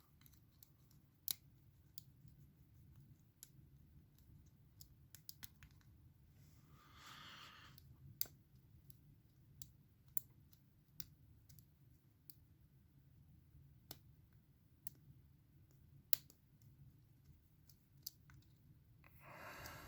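Faint, scattered sharp clicks of a steel lock pick working the pin tumblers of a cheap four-pin padlock, held under tension by a wiper insert in the keyway. There is a short scrape about seven seconds in and another near the end.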